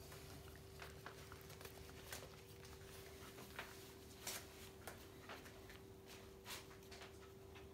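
Faint, scattered soft clicks and wet smacks of a cockapoo mother licking her newborn puppy clean, over a faint steady hum.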